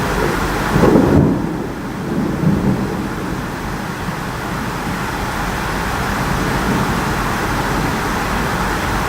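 Thunderstorm: heavy rain with a steady hiss, and a rumble of thunder that swells about a second in, with a smaller rumble at about two and a half seconds.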